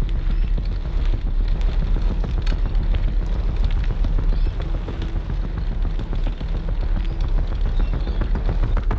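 Deep, steady low rumble from a film soundtrack's sound design, with a faint held tone rising out of it briefly three times.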